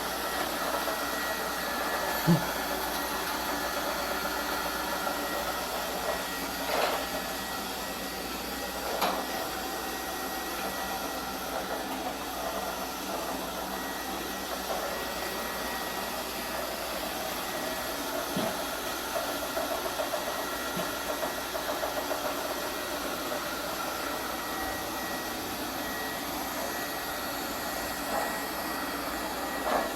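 Lefant M210 Pro robot vacuum running, a steady whir of its suction motor and brushes, with a few short knocks along the way.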